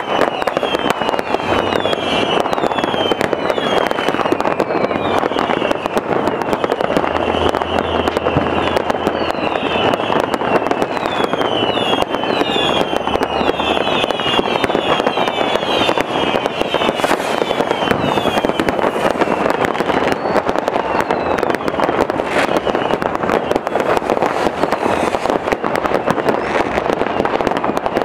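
Mass New Year's Eve fireworks: a dense, continuous crackle of firecrackers and rocket bangs, with many short whistles falling in pitch throughout.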